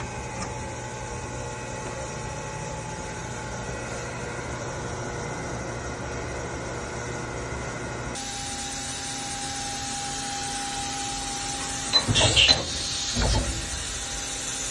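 Steady hum of machine-shop equipment with a few fixed tones, changing abruptly about eight seconds in to the steady whine of a CNC machining centre around its spindle. Near the end come two short, loud bursts of hiss, the louder first.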